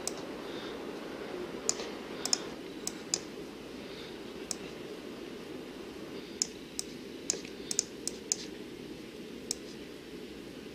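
Scattered computer mouse clicks, about fifteen at irregular intervals, some in quick pairs, as windows are dragged and arranged on the desktop. A steady low hum runs underneath.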